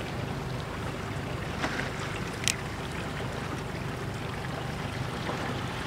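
Inflatable Zodiac boat's outboard motor idling steadily, with water washing around the boat and wind on the microphone. Two short sharp knocks come about one and a half and two and a half seconds in.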